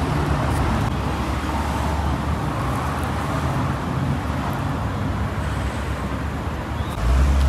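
Street traffic: cars driving by with steady road noise, a low engine rumble loudest in the first couple of seconds and again just before the end.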